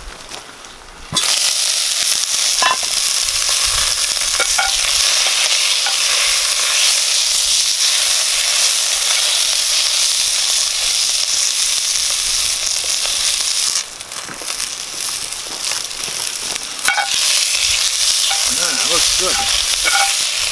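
Asparagus sautéing in a hot cast-iron Dutch oven: a loud sizzle starts suddenly about a second in as the spears go into the pan, then keeps on steadily while a spatula stirs them, with a few clicks of the utensil against the iron.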